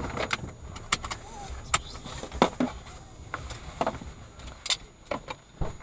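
Irregular clicks, crackles and rustles from things being handled inside a stopped car's cabin, over a low steady rumble.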